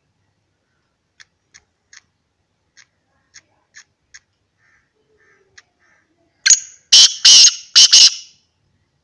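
Male black francolin giving its loud, harsh call: a rapid burst of about five grating notes lasting under two seconds, after a few faint ticks.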